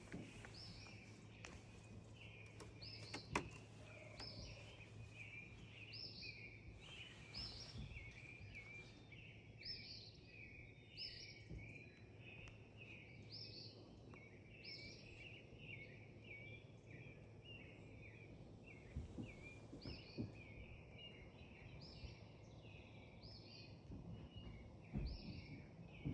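Faint birdsong: birds twittering steadily, with one repeating a short high note about once a second. A low steady hum lies underneath.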